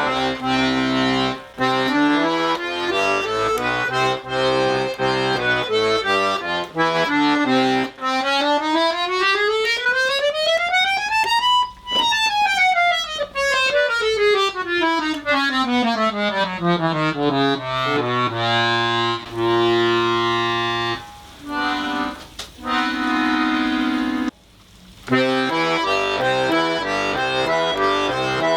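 Etyud bayan (Russian button accordion) being played after repair of its valves and left-hand keyboard: alternating bass notes and chords, then a fast scale run up and back down, held chords, a brief break, and the bass-and-chord pattern again.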